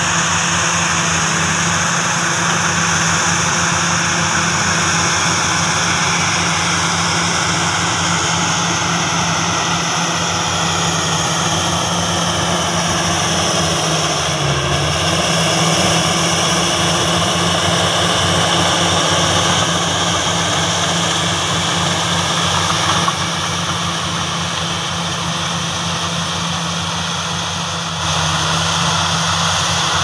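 Diesel engines of a crawler bulldozer and a Komatsu hydraulic excavator running steadily at working revs, with a high whine that slowly slides down and back up in pitch.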